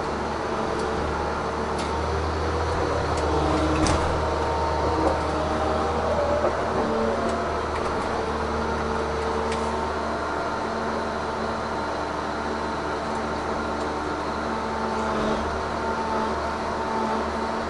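Tigercat 1075B forwarder's diesel engine and hydraulic crane running steadily, heard inside the closed cab as the crane swings, with a few steady tones that shift in pitch a few seconds in. A few light clicks and knocks come near the start.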